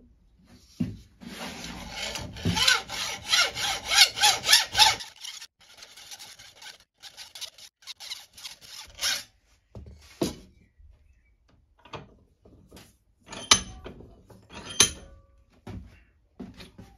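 Hacksaw cutting through phosphor bronze bearing extrusion held in a bench vice: a fast run of rasping strokes, about three or four a second, then slower, scattered strokes. Two sharp clicks or knocks come near the end.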